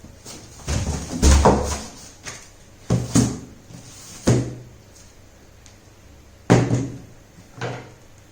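Cardboard graphics-card boxes being handled and set down: several separate thumps and knocks at irregular intervals.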